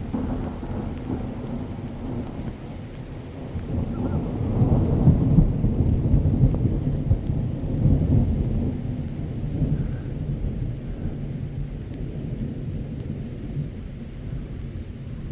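Thunderstorm: a long low rumble of thunder swells about four seconds in and slowly dies away, over steady rain.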